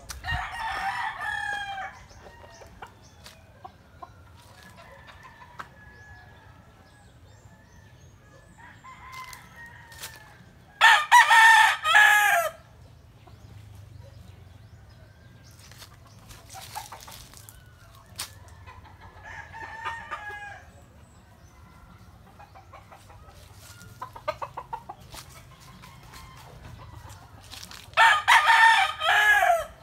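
Game roosters crowing in turn: three loud crows of about one and a half to two seconds each, at the start, about eleven seconds in and near the end. Fainter crows and clucks from other roosters come in between.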